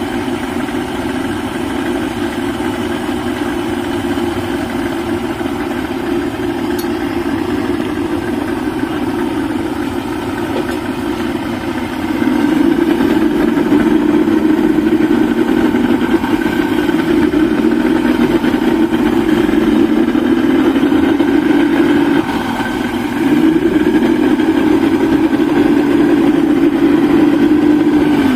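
Yamaha 200 hp two-stroke V6 outboard engine running steadily. It gets louder about twelve seconds in, drops back for a moment near the last quarter, then picks up again.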